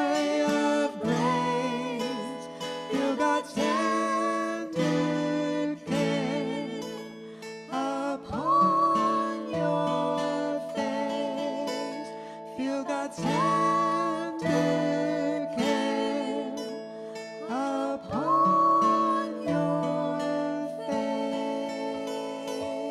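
Acoustic guitar strummed under a man's and a woman's voices singing a soothing song together. Near the end the singing stops and a last chord rings on and fades away.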